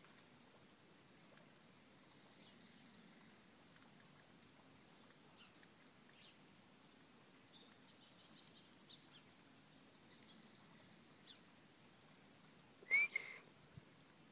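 Faint, slow snoring breaths of a sleeping horse, with scattered faint bird chirps. About thirteen seconds in, a short, sharp chirp with a rising pitch is the loudest sound.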